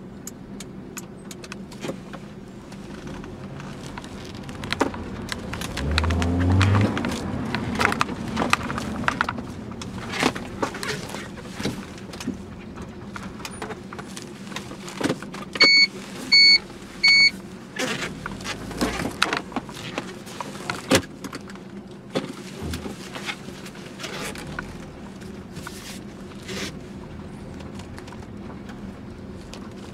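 Cabin sound of a 2007 Honda Accord Type S driving slowly: a steady engine hum with scattered clicks and rattles, and a swell of engine sound about six seconds in. About sixteen seconds in, three short electronic chime beeps sound.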